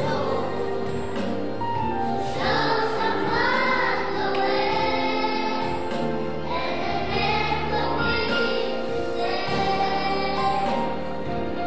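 Children's choir singing a gospel song in unison, the voices wavering and swelling over steady held accompaniment notes underneath.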